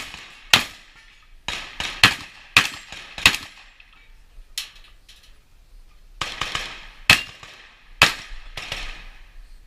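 Gunshots fired in a quick, uneven string, about a dozen, each followed by a short echo, with a pause of about a second and a half around the middle.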